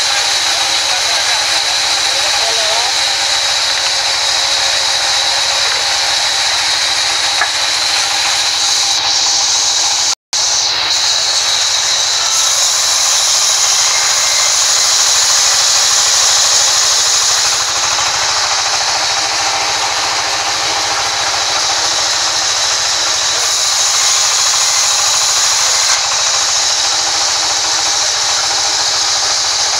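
A sawmill band saw blade ripping lengthwise through a thick, wide wooden slab: a loud, steady rasping hiss with a high whine over it. There is a split-second gap about ten seconds in.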